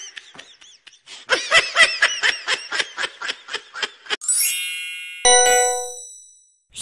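High-pitched cartoon giggle, a quick run of 'hee-hee' pulses about five a second. It is followed just after four seconds by a twinkling chime run falling in pitch, then a ringing ding sound effect.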